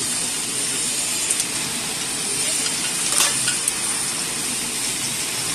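Chain-type hard candy forming machine line running: a steady hiss with a few sharp clicks as formed candies tumble down the discharge chute onto a mesh conveyor.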